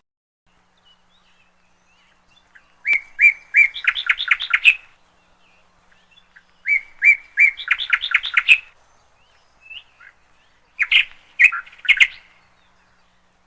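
A songbird singing: two matching phrases, each a few separate chirps and then a fast trill, followed by a few shorter chirps near the end.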